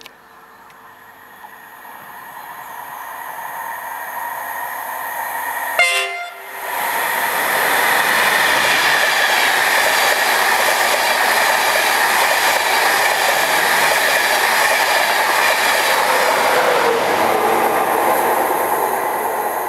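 An InterCity 225 express with a Driving Van Trailer leading Mk4 coaches approaches at speed. About six seconds in, the DVT sounds a short, very loud horn blast. The train then rushes through at line speed with a steady roar of wheels and air, easing slightly near the end.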